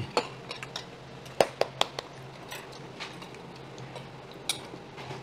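Metal spoons clinking and scraping against stainless steel rice bowls, a few sharp clinks scattered through, with a steady low hum underneath.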